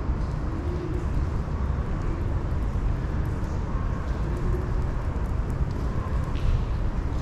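Steady outdoor urban ambience: a low rumble with faint passing hums and scattered light clicks.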